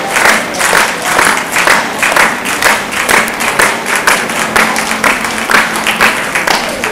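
Audience clapping together in a steady rhythm, about two claps a second, with faint music underneath.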